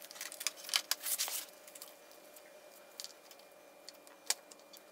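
Small clicks and rattles of a motorcycle radiator being unplugged and handled, a dense cluster in the first second and a half, then scattered light clicks with one sharper click about four seconds in.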